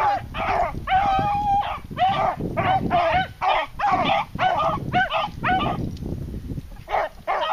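Beagles baying while running a rabbit's scent trail: quick, repeated pitched calls about two a second, with one longer, drawn-out note about a second in and a short pause near the end.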